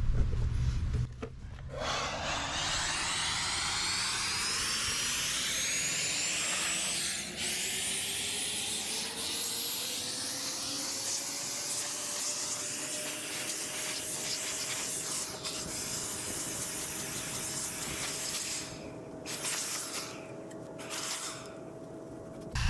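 Small handheld electric blower running, blasting caked dirt out of a clogged air-conditioner condenser coil. It starts about two seconds in, and its motor whine climbs gradually in pitch over about ten seconds before holding steady. It gets somewhat quieter near the end.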